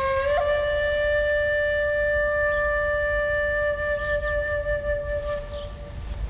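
Background score: a single long flute note, stepping up slightly in pitch just after it begins, then held steady until it fades out near the end.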